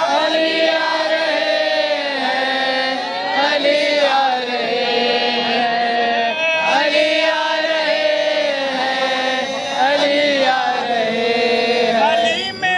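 Men singing an Urdu devotional song (manqabat) without words breaking through, drawing out long wavering notes.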